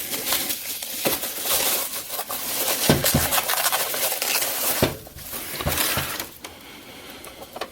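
Plastic wrapping rustling and crinkling as a compact photo printer is handled out of its box, with a few light knocks. It quietens in the last second or so.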